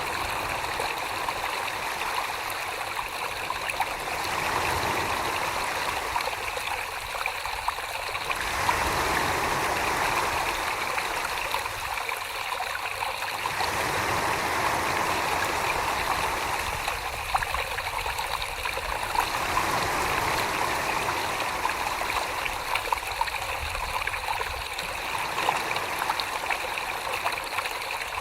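Wet clay being worked by hands on a spinning pottery wheel: a steady, watery slurry sound that swells and eases every few seconds.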